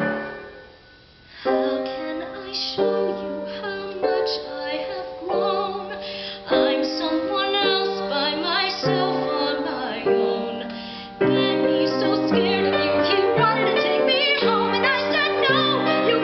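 A woman singing a musical-theatre song with piano accompaniment. The piano dies away briefly at the start, comes back in with held chords about a second and a half in, and her voice enters a second or so later.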